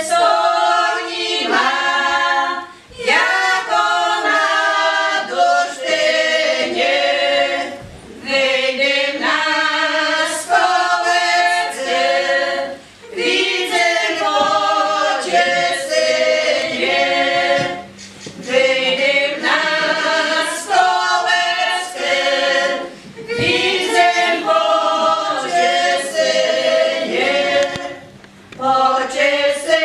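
A small group of voices singing a song together without accompaniment, in phrases of about five seconds with short breaks for breath between them.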